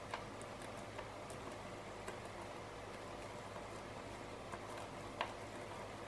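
Small magnetic balls clicking as they snap together while being pressed into place on a disc of magnet balls: about five sharp, separate ticks, the loudest about five seconds in, over faint steady room hiss and hum.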